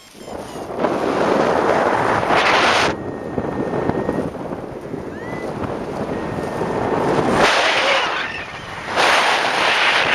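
Strong wind buffeting the microphone in uneven gusts. It builds about a second in, eases a little around three seconds, and surges again towards the end.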